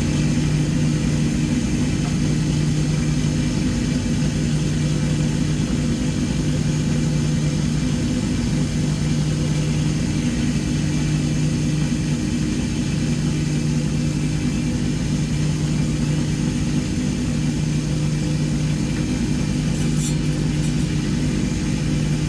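Lapidary rock saw running steadily with its diamond blade cutting into an agate: an even motor hum under a constant grinding hiss.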